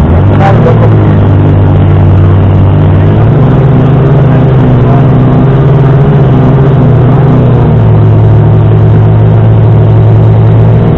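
PS 12 portable fire pump's petrol engine running flat out, loud and steady, while pumping water through the hoses to the nozzles during a fire attack. Its pitch shifts slightly a couple of times as the load changes, and there is a sharp click about half a second in.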